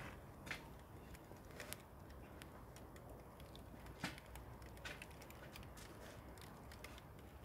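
Near silence with a small fire giving a few faint, irregular crackles.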